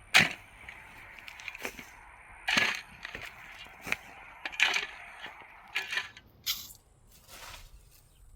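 A series of sharp, irregular knocks, about seven over a few seconds, over a steady hiss.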